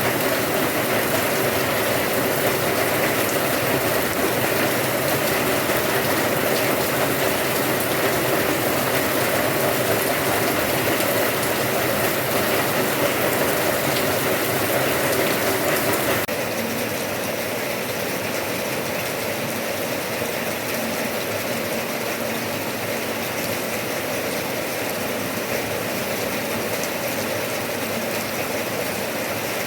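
Steady rain falling, a dense, even patter. A little over halfway through it suddenly gets quieter and duller.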